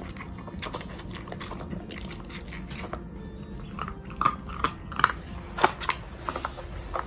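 A beagle puppy crunching dry kibble, with many sharp clicks and knocks of a plastic Nina Ottosson Dog Brick puzzle feeder. The loudest knocks come about four to six seconds in.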